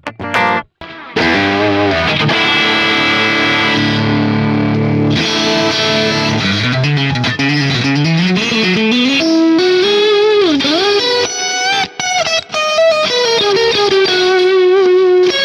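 ADOLA Primal Drip electric guitar played through overdrive. It opens with a few short choppy stabs, then a chord is held for about four seconds, then a single-note lead line with string bends and vibrato.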